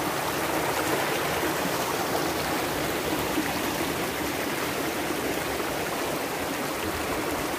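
A shallow rocky stream running over and between boulders: a steady rush of water.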